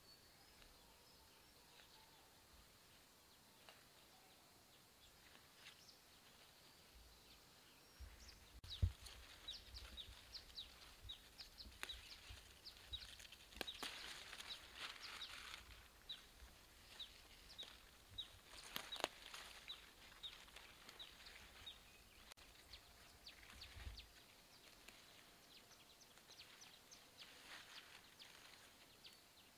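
Faint rustling and snapping of leafy plants as greens are picked by hand, with a run of short, high chirps, about three a second, through the middle stretch.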